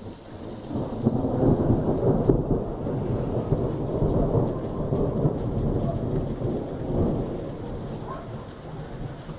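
Thunder: a long rolling rumble that builds in the first second, is loudest over the next few seconds, and slowly dies away.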